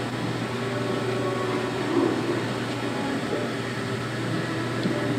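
A steady low machine hum with faint steady tones above it, swelling slightly about two seconds in.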